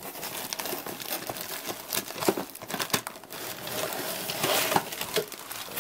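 Clear plastic parts bags crinkling and rustling, with cardboard rubbing, as the contents of a plastic model car kit are pulled out of its box.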